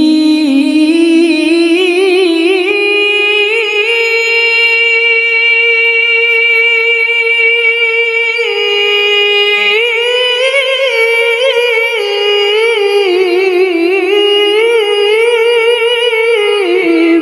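A woman reciting the Qur'an in melodic tilawah style, holding one long melismatic phrase on a single breath. The pitch climbs slowly over the first few seconds and holds, then breaks into quick ornamental turns from about ten seconds in before the phrase closes near the end.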